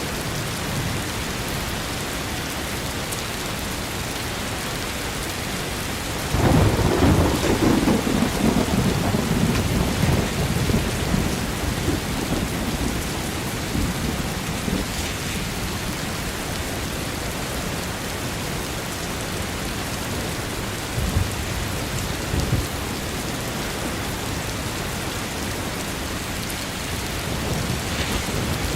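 Steady rain falling, with a loud clap of thunder about six seconds in that rumbles away over several seconds, and a rumble of thunder building again near the end.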